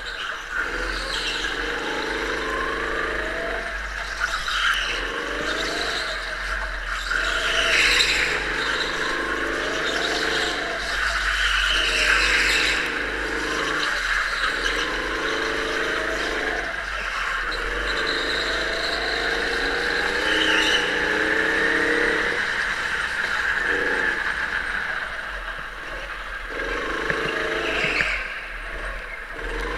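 Go-kart driven hard around a tight indoor track, its motor rising in pitch on each short straight and dropping off into the corners about every three to four seconds, with tyres squealing in the turns.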